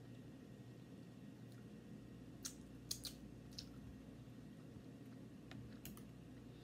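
Quiet eating sounds close to the microphone: a handful of short, sharp wet mouth clicks and smacks while a forkful of food is taken and chewed, clustered a little after two seconds in with one more near the end, over a steady low hum of room tone.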